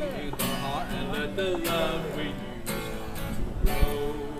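Live acoustic guitar strumming, with a man's voice holding a sung note over it at the start.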